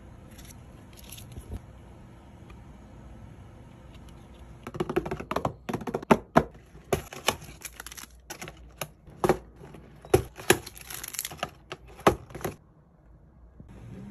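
Pokémon card booster-pack foil wrappers and packaging crinkling and tearing as they are handled: a quick, uneven run of sharp crackles and snaps that starts about a third of the way in and stops shortly before the end.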